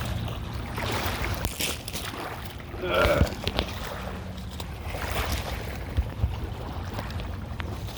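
Wind rumbling on the microphone over water lapping at the river's edge, with a brief voice sound about three seconds in.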